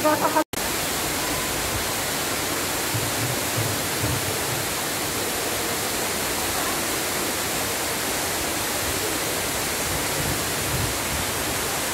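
Tall indoor waterfall: a steady, even rush of water falling from height, with a momentary break in the sound about half a second in.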